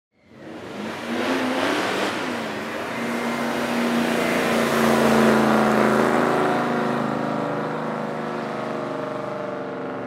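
Ford XY Falcon race car accelerating away. Its engine note bends up and down in the first couple of seconds, then holds steady. It is loudest about five seconds in, then slowly fades as the car pulls off down the course.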